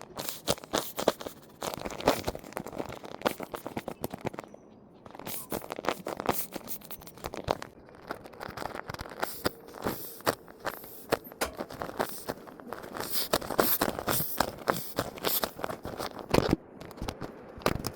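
Squishy toys being handled and squeezed: a dense, irregular run of small crunching, crackling clicks, with a brief lull about four and a half seconds in.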